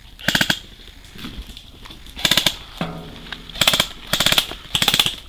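Airsoft electric gun firing five short full-auto bursts, each a quick rattle of shots lasting about a quarter of a second.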